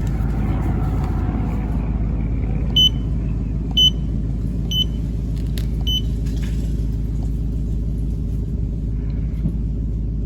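Steady low rumble of an idling car engine, with four short electronic beeps about a second apart from a handheld digital battery tester as it runs a battery test.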